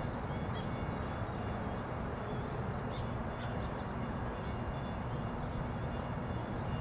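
Steady low outdoor background rumble, with a few faint high chirps in the middle.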